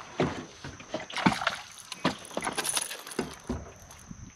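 Irregular knocks and clatter in a small fishing boat, with a light metallic jingle like treble hooks on a popper lure rattling, as a just-landed bass is handled on board.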